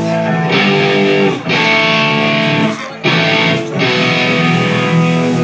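Live band playing, with electric guitar chords to the fore. The music breaks off briefly about a second and a half in and again about three seconds in, then carries on.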